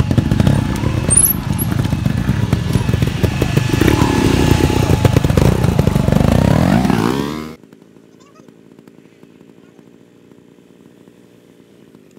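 Trial motorcycle engine revving unevenly, with a rising rev a little before it cuts off suddenly about seven and a half seconds in. A much quieter steady background follows.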